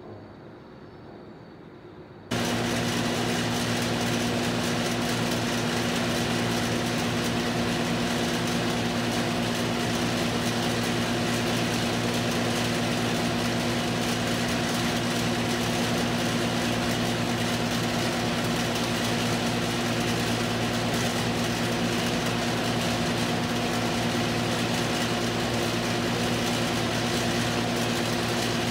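A steady mechanical hum with a hiss over it, cutting in abruptly about two seconds in and holding unchanged.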